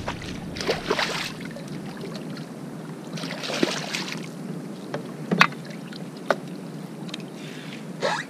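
Water splashing beside a plastic fishing kayak as a hooked lingcod is brought to the landing net, in two splashy bursts, followed by a few sharp knocks.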